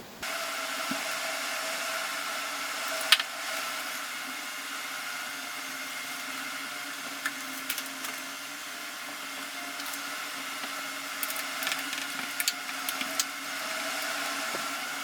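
Small electric motor and fan running steadily with a whine, with scattered light clicks and taps. It starts and stops abruptly.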